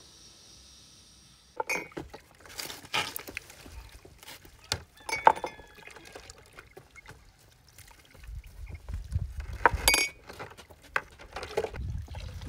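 Hands washing in a plastic basin of water: splashing with small clinks of dishes against each other, and water poured into the basin near the end. It starts after a second and a half of faint hiss, and a low wind rumble on the microphone joins from about eight seconds in.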